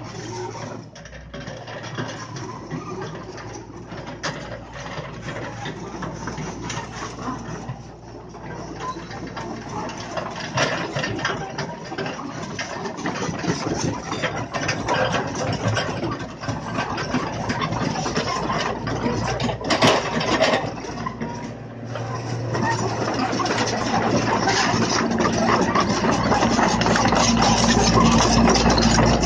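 Komatsu PC75 mini excavator's diesel engine running as the machine works and travels on its steel crawler tracks, with irregular metal clanks and rattles. It grows steadily louder as the excavator comes close in the last several seconds.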